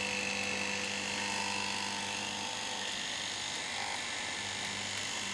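Dishwasher pump's small electric motor running steadily on mains power, spinning freely without its impeller blades: a high whine over a low electrical hum.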